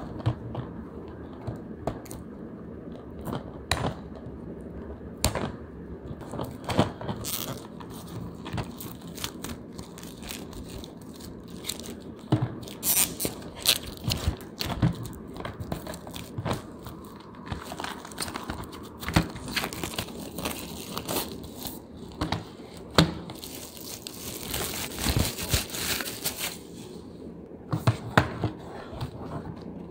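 Plastic wrapping being peeled and torn off a cardboard paint box, crinkling and tearing in short irregular snatches among taps and knocks of the box being handled. The crinkling is densest a little before the end.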